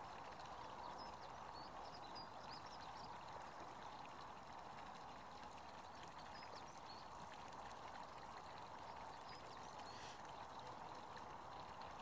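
Faint, steady rain falling, an even watery hiss. A few faint high chirps come through in the first few seconds and again about halfway.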